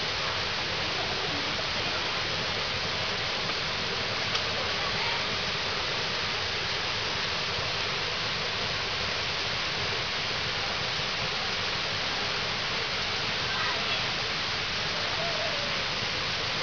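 Steady, even rushing noise with no clear events, the kind made by running water, rain or microphone hiss.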